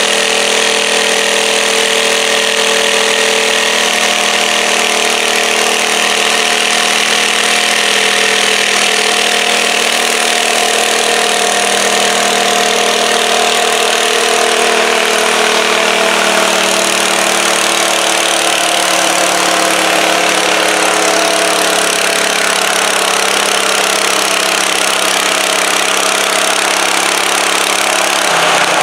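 John Deere garden tractor engine idling steadily while the tractor is hooked to the pulling sled, its pitch sagging slightly in the second half.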